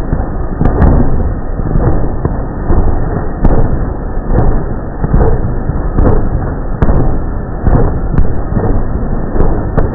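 Big-rig diesel engines of drag-racing semi trucks revving hard at close range, pouring black smoke. The sound is very loud and overloads the recording, a distorted steady din broken by irregular sharp cracks about once a second.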